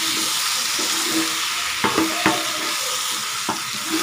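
Fish, potatoes and pumpkin sizzling in oil in a speckled stone-coated non-stick wok while a wooden spatula stirs them, with a steady hiss. A few sharp knocks and scrapes of the spatula against the pan come around two seconds in and again near the end.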